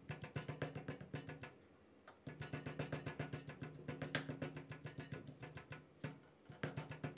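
Granite pestle pounding shallots and peppercorns in a granite mortar, regular strikes about four a second, stopping briefly twice. The ingredients are being pounded into a coarse paste.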